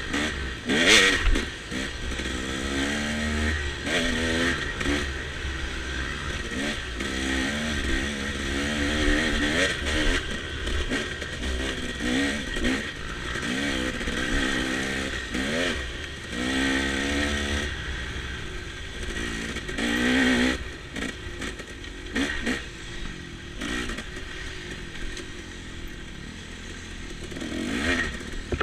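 Off-road dirt bike engine under the rider, revving up and down again and again as the throttle is worked along a rough trail, with occasional knocks and rattles from bumps.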